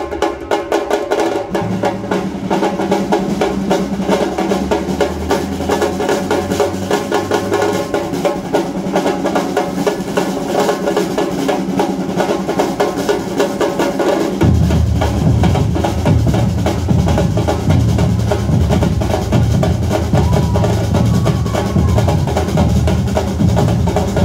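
Batucada drum ensemble playing a fast samba beat: dense, quick drum strokes over deep bass drums. The deep drums come in a second or two in and grow much heavier about halfway through.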